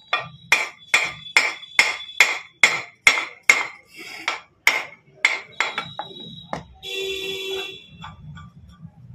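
A hammer strikes metal motorcycle gearbox parts in an even run of about a dozen sharp blows, roughly two a second, each ringing briefly. The blows stop after about six seconds, and a short steady ringing tone follows about a second later.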